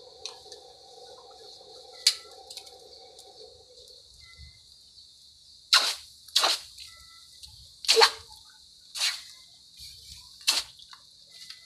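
Red-hot steel bolo blade dipped edge-first into a water trough again and again to harden its edge: five short hisses, about a second apart, in the second half. A low steady hum stops about four seconds in, and a faint high hiss runs underneath.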